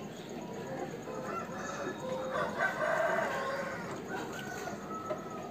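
Aseel rooster crowing: one long, drawn-out crow that is loudest near the middle.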